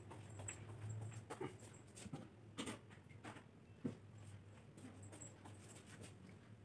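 Faint knocks and clicks from a phone being handled while it films, over a low steady hum.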